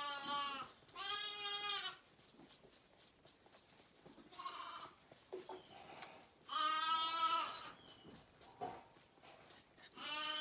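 Lambs bleating: a series of long, wavering bleats, one just after the start, a fainter one midway, a loud one about seven seconds in and another beginning at the very end.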